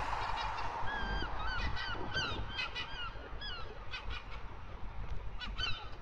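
Black-backed gull giving a rapid series of short, harsh alarm calls, each bending down in pitch at the end, about three a second for a couple of seconds, then a few more near the end. These are the defensive calls of a gull guarding its nest against an intruder.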